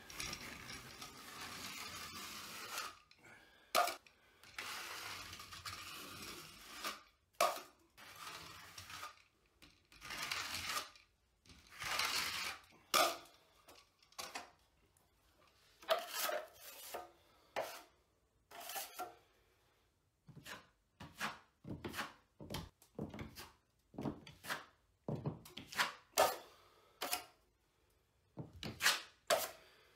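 Steel drywall knife spreading and scraping thick quick-setting joint compound into drywall seams. A few long scraping strokes come first, then a run of short, quick scrapes and clicks in the second half.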